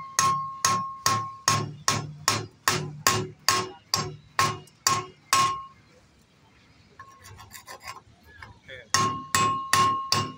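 Quick metal-on-metal strikes, about three a second, each ringing briefly: a steel bar knocking slag off a fresh weld bead on steel channel. The strikes stop for about three seconds past the middle, leaving a few faint scrapes, then start again near the end.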